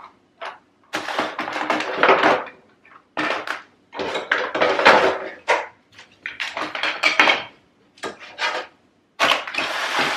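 Kitchen utensils clattering and knocking together as they are handled and moved about, in irregular bursts of a second or so with short pauses between.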